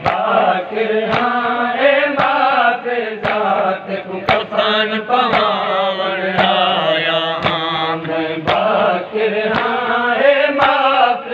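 Men chanting a noha, a Shia lament, in a sung refrain, over a steady beat of hands striking chests (matam) about once a second.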